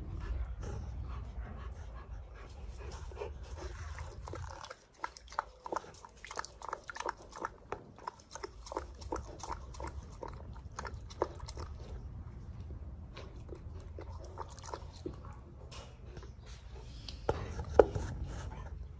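Black panther lapping water from a bucket: a run of quick wet laps, a few a second, beginning about five seconds in, with one louder knock near the end.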